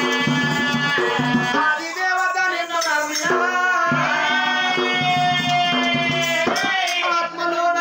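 Oggu Katha folk music: a melody in long held notes over a steady jingling rattle.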